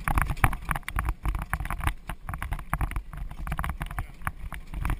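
A German riding pony's hooves striking the ground in a quick run of hoofbeats, over the rumble and rattle of the carriage it is pulling. Wind buffets the microphone.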